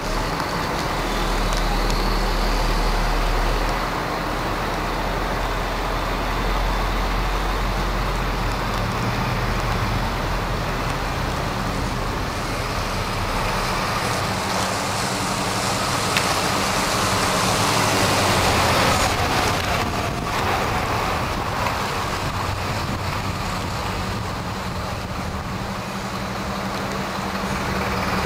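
Heavy diesel lorries with tipper trailers running slowly through town, with a steady low engine note. Tyre hiss on the wet road builds up around the middle as a lorry passes.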